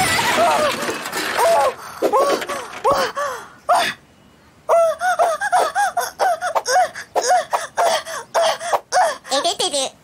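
Cartoon characters' high-pitched voices laughing and giggling in quick repeated bursts, after a short burst of noise at the start.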